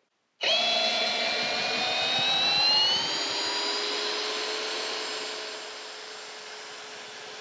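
Hilti SF 6H-A22 cordless hammer drill driving a long lag screw into a log, its motor and gearbox making a steady whine under load. The whine starts about half a second in and rises a little in pitch over the first few seconds. It grows quieter in the second half as the screw sinks deeper.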